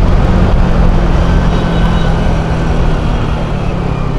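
Motorcycle being ridden on a road, a steady engine hum under heavy wind noise on the microphone; the sound eases a little near the end.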